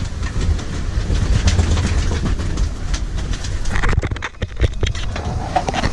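Wind rumbling hard on the microphone aboard a sailing yacht in gusty wind and a rough, confused sea, with irregular clattering and knocks throughout.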